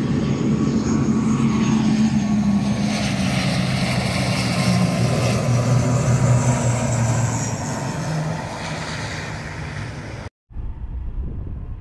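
Aircraft engine running with a steady drone whose low tones slide slightly lower in pitch. It cuts off abruptly near the end.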